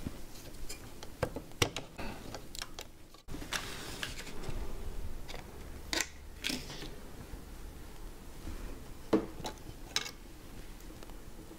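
Scattered clicks and taps of hands working on an Apple G4 Cube's memory: a RAM module being released from its slot and handled. There is a short stretch of plastic packaging rustle about four seconds in.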